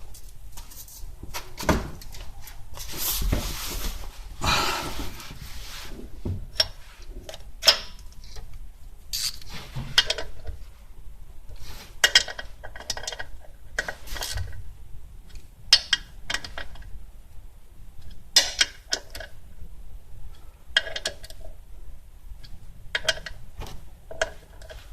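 Irregular metallic clinks, knocks and scraping of hand tools and parts, with a longer scrape a few seconds in, as the clutch slave cylinder is fitted and tightened.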